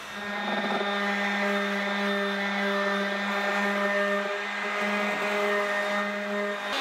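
Electric random orbital sander running steadily while sanding the boat's wooden cockpit: an even motor hum that stops abruptly near the end.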